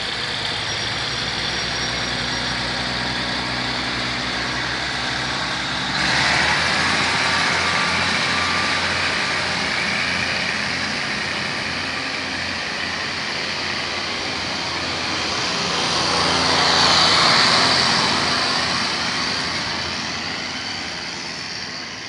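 Diesel railcar train pulling out of a station: the underfloor diesel engine runs steadily, then the train's running noise swells to its loudest a few seconds past the middle and fades as the train draws away.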